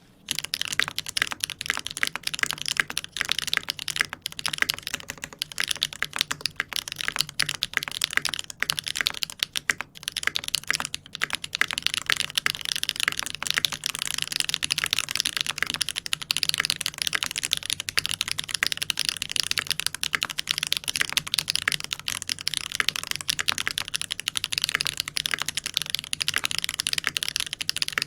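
Continuous fast typing on a TX custom mechanical keyboard with a 1.5 mm brass plate and sandwich mount, a dense stream of keystroke clacks that starts abruptly and never pauses.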